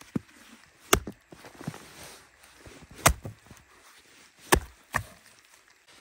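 Axe chopping into a log on a stump chopping block, splitting firewood: four sharp chops, the last two close together, with fainter knocks between.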